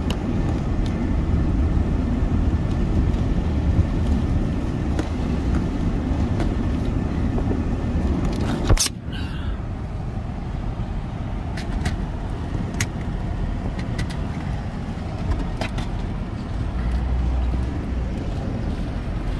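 Cars driving past: a steady low rumble, with a sharp knock about nine seconds in.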